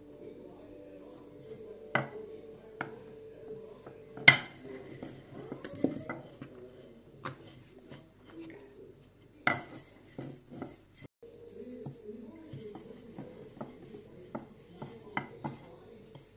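Dough being pressed flat by hand on a hard board, with scattered sharp knocks and clacks against the work surface, the loudest about four seconds in and others near two and nine and a half seconds in.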